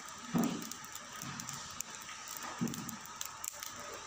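Firewood burning in a wood-fired clay stove, crackling with many small sharp pops. Two brief low muffled sounds come about half a second and two and a half seconds in.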